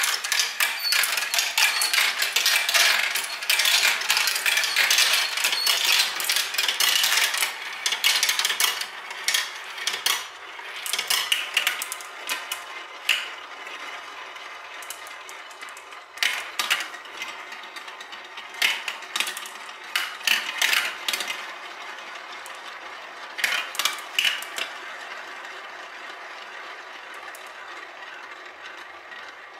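Glass marbles rolling and clattering down a plastic marble run, clicking against the track and each other as they circle and drop through plastic funnels. The clatter is dense for the first several seconds, then thins to scattered bursts of clicks that die away near the end.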